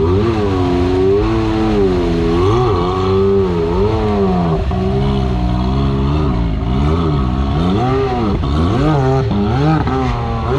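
Side-by-side UTV engine on 45-inch-plus mud tires revving hard again and again under load in deep mud, its pitch rising and falling every second or so as the throttle is worked.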